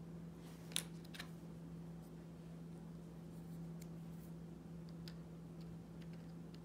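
Small miniature-kit parts being handled and set down on a cutting mat: one sharp click about a second in, a softer one just after, and a few faint ticks later, over a steady low hum.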